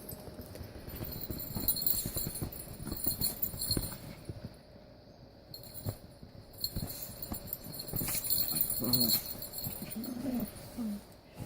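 A Pomeranian tussling with a stuffed toy: irregular scuffling, rustling and soft knocks, with a few short low growls near the end.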